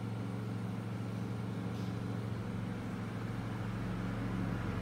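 A steady low machine hum that holds at an even pitch and level throughout.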